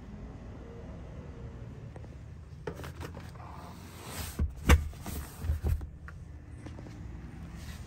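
Knocks and rustles of handling around a car's rear seat, with one sharp thump about halfway through, over a low steady hum in the cabin.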